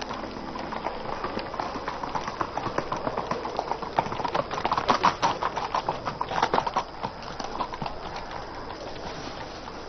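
Horse hooves clopping on the ground, a dense run of strikes that grows louder around the middle and thins out after about seven seconds.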